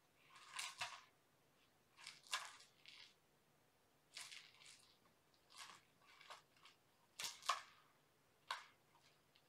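Kittens at play making faint, scratchy scuffles and rustles, in about six short irregular clusters.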